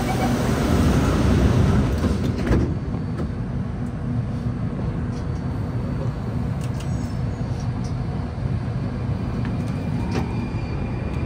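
Alstom C830 Circle Line metro train heard from inside the car as it sets off from a station: a steady low rumble and hum, loudest at first, with a thud about two and a half seconds in. Faint thin motor tones sound over the rumble as the train moves off.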